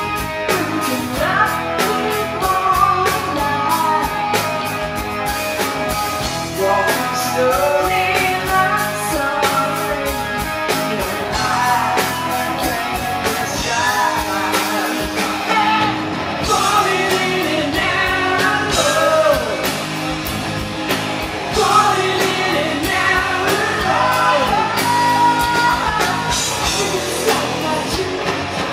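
Live hard rock band playing with a woman singing lead over electric guitar and a steady beat, heard as a concert recording in a large hall.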